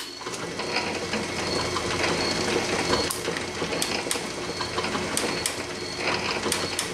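Atlas 7B metal shaper switched on with a click, then running steadily, its ram stroking back and forth, with repeated sharp clicks over the machine's running noise.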